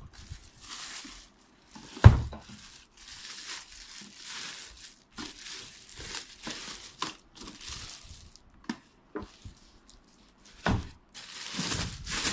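Packaging being handled during unboxing: repeated crinkling and rustling, with a loud thump about two seconds in and another knock near the end.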